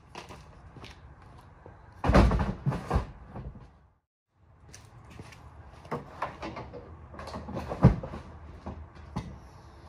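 Clunks, knocks and rattles of gear being handled at the open tailgate of a pickup truck. The sound is loudest about two seconds in, with another sharp knock near eight seconds.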